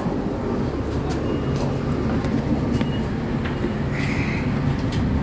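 Cabin noise inside a New Flyer DE40LF transit bus: a steady low rumble from the bus's drivetrain, with small rattles and clicks and a brief hiss about four seconds in.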